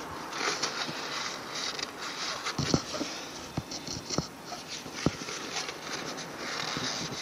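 A cloth rag rubbing and wiping over the main bearing caps and crankshaft of a stripped-down engine block, a scratchy rustling that comes in spells, with several light metallic clicks and taps.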